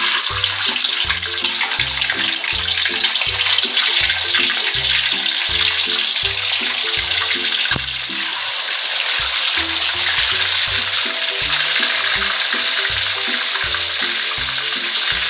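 Whole catfish sizzling steadily as they half-fry in hot oil in a wok. Background music with a steady beat plays underneath.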